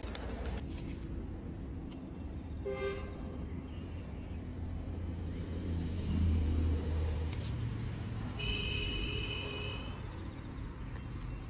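Steady low rumble of road traffic, swelling once about six seconds in. A short horn-like toot comes about three seconds in, and a held high tone sounds for nearly two seconds near the end.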